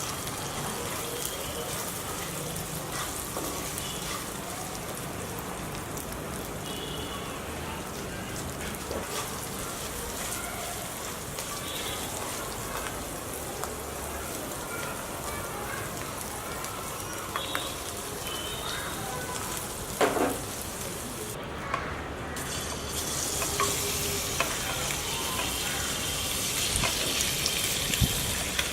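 Chicken frying in a pan with a steady sizzle, stirred with a spatula that knocks and scrapes against the pan now and then. The sizzle grows louder in the last few seconds.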